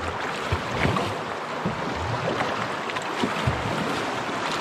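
Rushing river water splashing around a canoe's hull in a riffle, with irregular low thumps.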